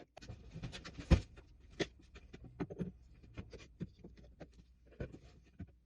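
Handling noise: a string of light knocks and clicks as objects are moved and set down, the loudest knock about a second in.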